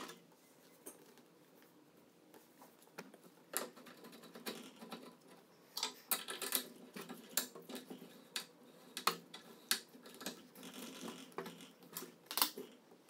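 Scattered light clicks and small knocks as a plastic exercise-bike pedal and a metal tool are handled and the pedal is fitted onto its steel crank arm. The first few seconds are nearly quiet.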